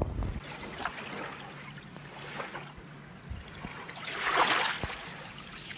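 Water heard from below the surface by a phone's microphone after it has fallen into a river: a muffled, steady watery rush that swells louder about four seconds in.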